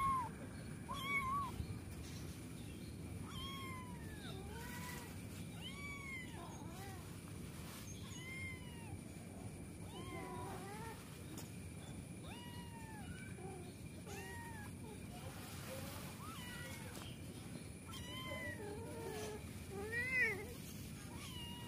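Persian kitten mewing repeatedly, short high arching mews about once a second, the loudest cluster near the end.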